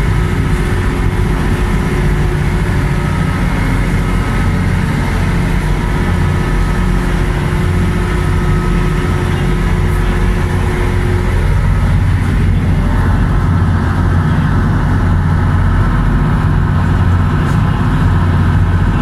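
Passenger ferry's engines running steadily under way: a loud, even low drone with a higher steady hum that drops away about two-thirds of the way through, mixed with the rush of water and wind.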